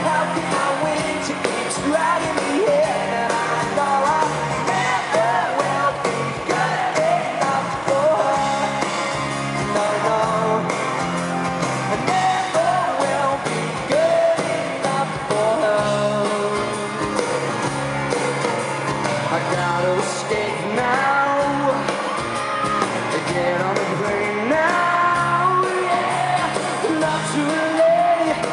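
Pop-rock band playing live: electric guitars and a lead vocal singing a continuous song, recorded from the audience in a large arena.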